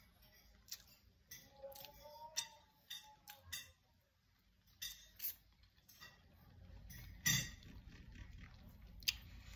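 Wet lip smacks and mouth clicks from eating with the hands and licking the fingers: a dozen or so short, sharp clicks at irregular intervals, the loudest about seven seconds in.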